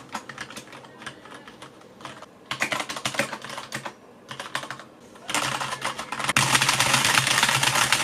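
Typing on a SteelSeries 6GV2 mechanical keyboard with Cherry MX Red linear switches. Scattered keystrokes come in short runs with pauses, then from about five seconds in a fast, dense flurry of keystrokes that gets louder.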